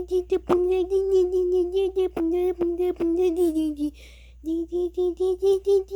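A child's voice beatboxing: humming one steady note chopped into quick pulses, with a few sharp clicks, and a short pause about four seconds in.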